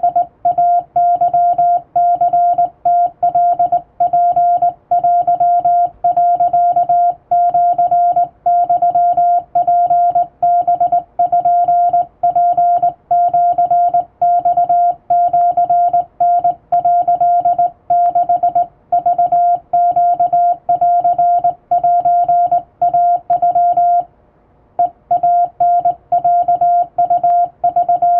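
Japanese wabun Morse code sent by hand on a straight key: a steady, mid-pitched sidetone beep keyed on and off in rapid dots and dashes, breaking off for about a second near the end before resuming.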